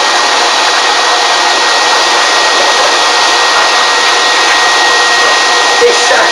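A vacuum's motor running steadily: a loud, even rushing noise with a thin constant whine, turned on a puppy during grooming.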